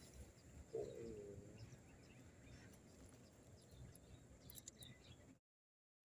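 Faint outdoor ambience: a steady thin high-pitched whine, one short wavering call about a second in, and a few light clicks, before the sound cuts out to silence near the end.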